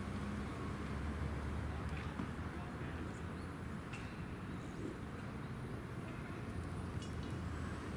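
Street ambience: a steady low traffic rumble with faint voices and a few light clicks.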